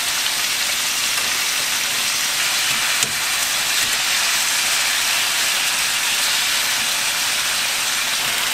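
Boneless chicken thighs frying in oil in a pan with whole garlic cloves and green onion, a steady even sizzle. There is one brief click about three seconds in.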